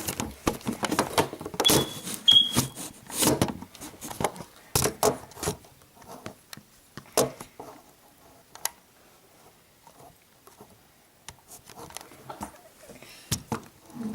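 Irregular clicks and knocks of objects being handled, thick for the first six seconds or so and then sparse, with some faint muffled voice in the first few seconds.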